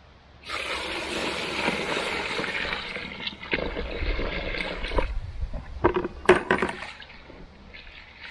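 Water poured from a plastic bucket onto dry particles and corn in another plastic bucket: a steady splashing pour for about four and a half seconds. It is followed by a few sharp plastic knocks and rattles, the loudest sounds, as the bucket is handled and hands go into the soaking grain.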